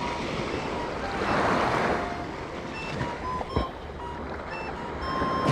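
Waves of the surf breaking and washing up the beach, swelling about a second in and again near the end.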